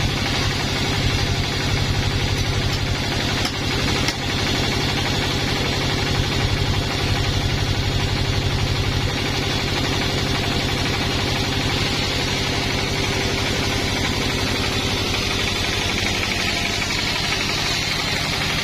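A sawmill's engine running steadily with a fast, even firing beat. There are two short knocks about three and a half and four seconds in.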